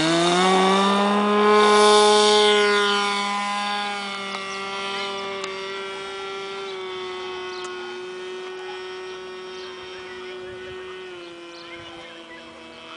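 Radio-controlled Zlin Z-50 model plane's O.S. rotary (Wankel) engine opening up to full throttle on takeoff: a high, steady drone that climbs in pitch at the start, dips as the plane passes about two seconds in, then fades as it flies away, easing off slightly near the end.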